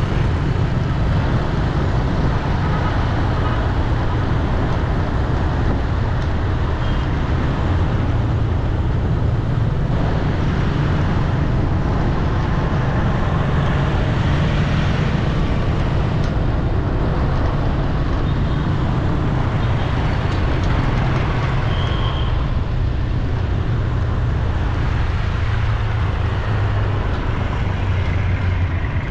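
Steady road traffic noise, the continuous rumble of passing vehicles on a city street, with a short high beep about three-quarters of the way through.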